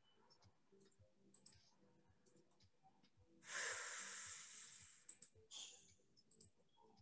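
Near silence with faint mouse clicks. About three and a half seconds in, a short breathy rush of noise fades out over a second and a half, followed by a briefer one.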